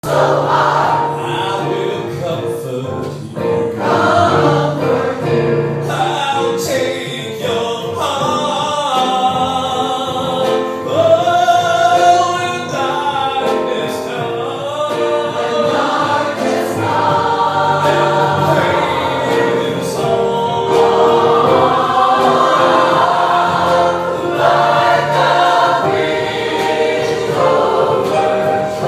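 Choir singing a gospel-style song, with sustained chords that move from note to note.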